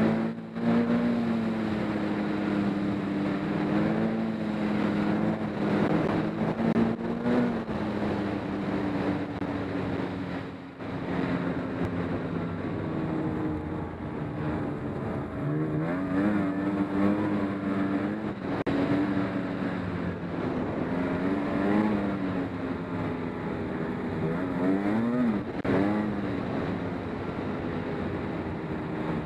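Snowmobile engine running under way, its pitch rising and falling as the throttle is worked, with a brief let-off about ten seconds in.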